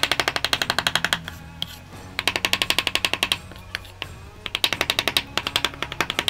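Meat cleaver chopping smoked brisket on a wooden cutting board: rapid strokes, several a second, in three quick bursts with short pauses between.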